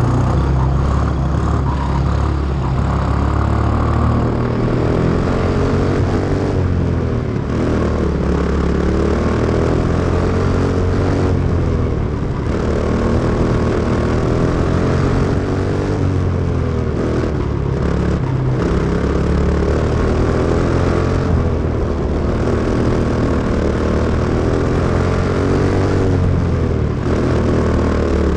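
Quarter midget's Briggs & Stratton Animal single-cylinder engine running hard at race speed, heard from on board. Its pitch climbs down the straights and dips each time the driver lifts for a turn, over and over around the dirt oval.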